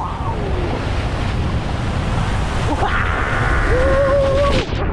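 Rush of water and wind from a Skurfer board carving across the water behind a cable tow, with spray and wind buffeting the action camera's microphone. Near the end a man gives one long shout that lasts about a second.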